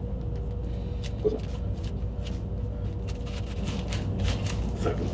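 Thin plastic wrap, like food wrap, crinkling and crackling as fingers pick at it and peel it off a katana's handle. The crackles grow denser in the second half, with a couple of soft knocks.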